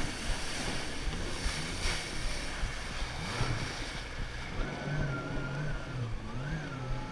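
Jet ski (Sea-Doo personal watercraft) running at speed, with water spray and wind rushing over the microphone. About halfway through, the engine's hum and whine come through more clearly, wavering in pitch with the throttle.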